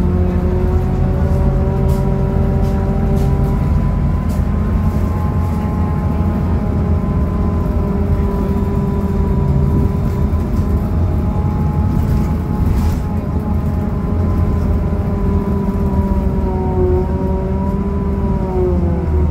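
Scania K280UB city bus under way, heard from inside the passenger cabin: the DC09 five-cylinder diesel's low rumble with a steady driveline whine over it. The whine's pitch rises slightly in the first few seconds and falls away near the end, with light interior rattles.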